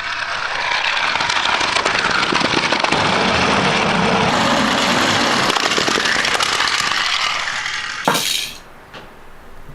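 Many small die-cast toy cars clattering against each other and their track or box: a dense, loud rattle of clinks that stops abruptly about eight seconds in.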